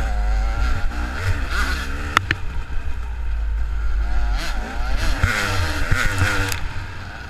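KTM dirt bike engine revving up and down over and over as the bike rides a trail, with a couple of sharp clicks about two seconds in.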